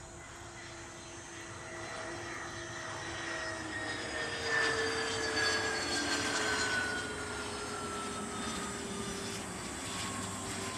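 Turbofan engines of a Cessna 525A Citation CJ2+ business jet whining as it rolls along the runway after landing. The sound grows loudest about halfway through as the jet passes close by, and the whine's pitch falls steadily as it goes past.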